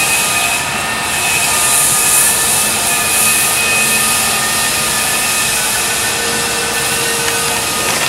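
Floor sanding machine running steadily: a constant loud hiss with several faint, steady whining tones running through it.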